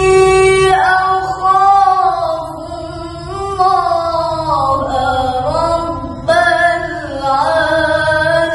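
A female Quran reciter (qoriah) reciting solo in the melodic tilawah style. She holds long notes with pitch ornaments that glide up and down.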